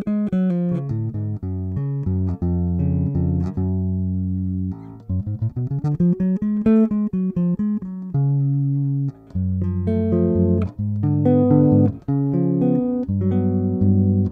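Modulus Funk Unlimited 4 electric bass, with a single Seymour Duncan MM-style pickup and an Aguilar OBP-1 preamp set with the bass boosted about halfway and the treble a quarter, played fingerstyle and plucked near the neck. It plays a riff of short, sharply plucked notes, with a slide up and back down about five seconds in.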